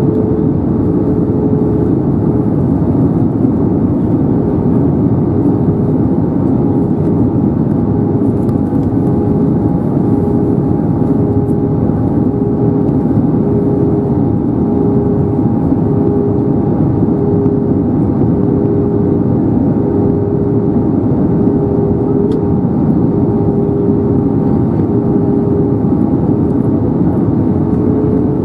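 Steady in-flight cabin noise of an Airbus A320neo heard from a seat over the wing: a dense, even rush of airflow and engine noise from its Pratt & Whitney PW1127G geared turbofans, with a faint steady hum running through it.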